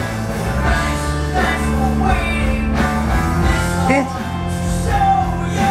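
A recorded song with a singing voice and accompaniment, playing steadily.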